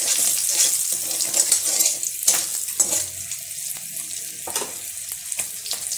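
Whole spices and turmeric sizzling in hot oil in a karai, stirred with a spatula that clicks against the pan a few times. The sizzle is louder for the first couple of seconds, then settles lower.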